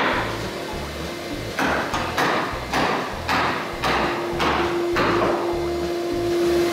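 Hammer blows on a wooden hull plank, a run of about eight evenly spaced taps at roughly two a second, driving a new bottom plank forward into place.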